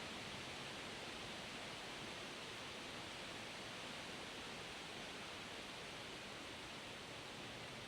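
Wind rustling through forest leaves, a steady even hiss.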